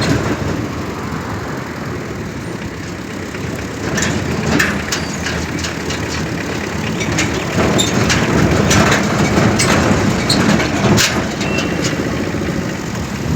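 Vehicle travelling along a road: a steady engine and road rumble with traffic noise and scattered knocks, getting louder about eight seconds in.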